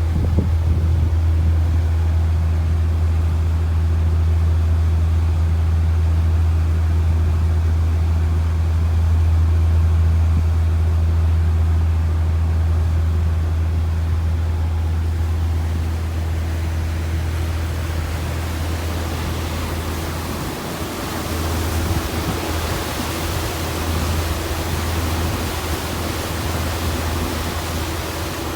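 Fishing boat under way: its engine runs with a steady low drone. From about halfway, a rushing hiss of wind and sea comes up over it.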